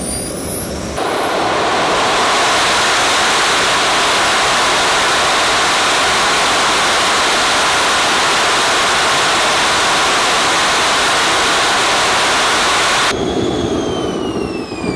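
Small model jet turbine running on HydroDiesel (diesel with 20% water). A high whine opens up about a second in to a loud, steady full-throttle roar that holds for about eleven seconds. Near the end the roar cuts off and the turbine's whine falls in pitch as it spools down.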